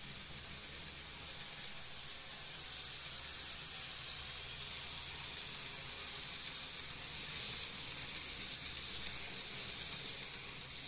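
Tomix N-scale model train running on the track: a faint, steady hiss-like whir of its wheels and motor on the rails, a little louder about seven to nine seconds in as the blue coaches pass close, over a low steady hum.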